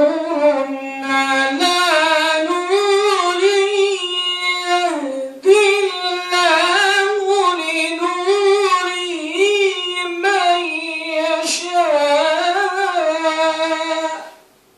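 A man's solo Quran recitation in the Warsh reading, chanted in long melodic phrases with held, ornamented notes. He breaks for a breath about five seconds in, then chants one longer phrase that stops just before the end.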